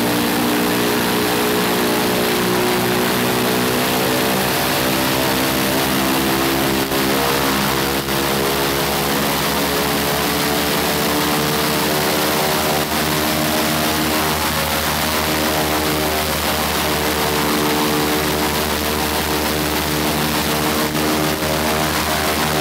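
The right-hand Shvetsov ASh-82T fourteen-cylinder radial engine of an Ilyushin Il-14T running with its propeller turning: a loud, steady engine note whose pitch wavers slightly around the middle.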